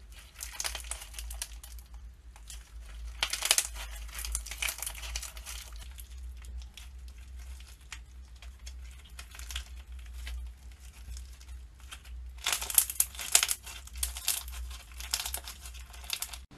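Slime being squished and worked by hand, giving dense wet crackling and popping in bouts, the loudest bout in the last few seconds.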